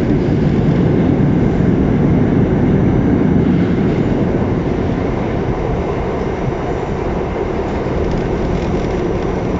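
New York City subway Q train running through the tunnel: a steady, loud low rumble of wheels on rails that eases a little in the second half.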